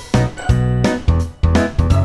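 Upbeat background music with a steady beat.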